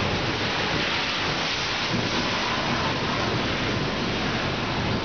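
Steady rain during a severe thunderstorm: a continuous, even hiss with a low rumble underneath.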